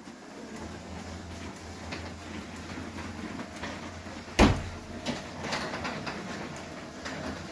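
Centurion SD04 T10 Smart garage door motor running with a steady low hum as it drives a sectional garage door along its rails, the motor not labouring. A loud knock comes from the door about four and a half seconds in, among lighter clicks and rattles.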